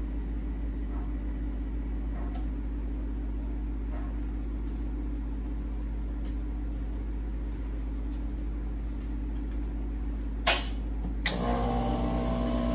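Steady low background hum. About ten seconds in come two clicks, then the Rancilio Silvia's vibratory pump buzzes for about a second and a half with water hissing through the group head, a brief flush, and stops near the end.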